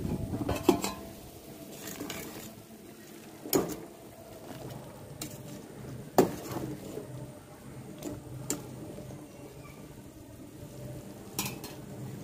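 A stainless-steel perforated skimmer clinks against steel cooking pots, about half a dozen sharp metallic knocks spaced a second or two apart. Under them runs a steady low bubbling from a pot of biryani masala boiling.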